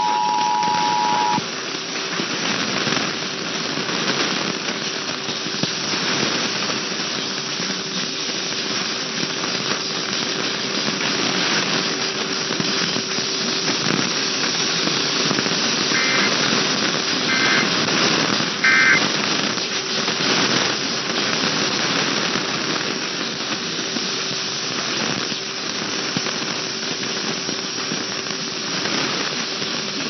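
Off-air AM radio reception of an Emergency Alert System test: the two-tone attention signal cuts off about a second in. It leaves loud static and hiss with a steady faint whistle. About halfway through, three short data bursts sound a little over a second apart, the EAS end-of-message code.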